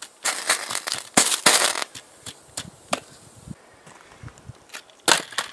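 High-current DC arcing from four lead-acid batteries in series, shorted through a computer motherboard: loud crackling and popping bursts for the first two seconds, then scattered crackles and pops, with another sharp burst about five seconds in.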